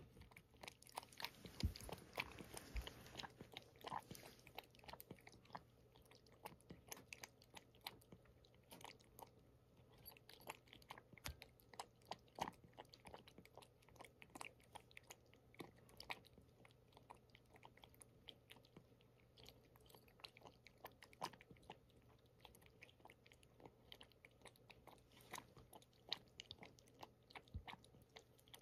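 A cat eating from a ceramic bowl: faint, irregular chewing and lip-smacking clicks that go on throughout.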